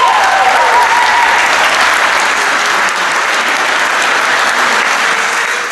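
A room of people applauding, steady and loud. The last held note of a song dies away under it in the first second.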